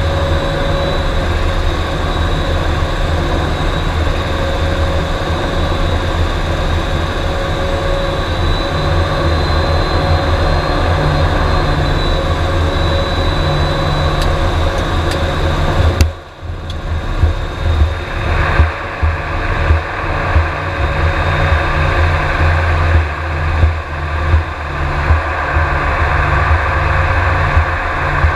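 C-2A Greyhound's twin Allison T56 turboprop engines droning steadily, heard in the cockpit, with a low hum and a steady high whine. About two-thirds of the way through, a sharp knock is followed by a sudden drop in engine noise, then the noise builds again with irregular thumps and knocks, in keeping with the aircraft touching down and rolling out on the runway.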